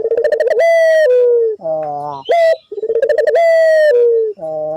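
Puter dove cooing: a long rolling, pulsing coo followed by a short lower note and a quick high note, the phrase given twice, about every two and a half seconds.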